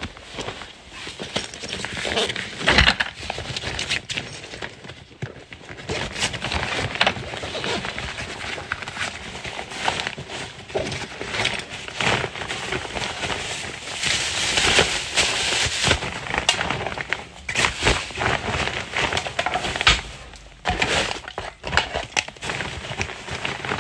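A backpack being unpacked by hand: fabric and a plastic shopping bag rustling and crinkling, with many short knocks as tubes of caulk and cans are taken out and set down on the floor.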